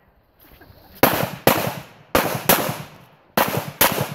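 Pistol shots on a practical shooting stage: six shots fired as three quick pairs, the two shots of each pair a little under half a second apart, each with a short echo.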